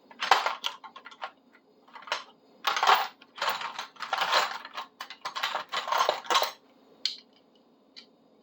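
Flaking fake chrome plating being scraped off a metal tool blade in a run of short, irregular strokes, stopping about six and a half seconds in, followed by two faint clicks.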